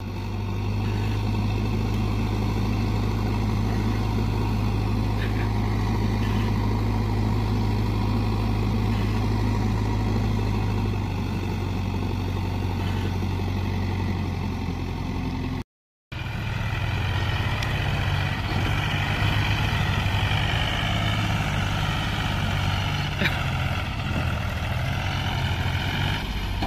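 Diesel engines of a JCB backhoe loader and a Mahindra tractor running steadily while sand is loaded into the tractor's trolley. The sound cuts out briefly about 16 seconds in, then resumes with a rougher, fluttering engine note.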